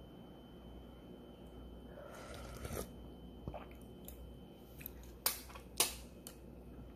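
Someone eating ramen: faint chewing with a few sharp clicks, the two loudest about five seconds in, half a second apart.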